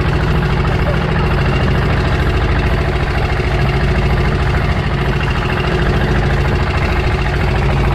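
A boat's engine running steadily under way, a constant low drone with a rapid firing pulse.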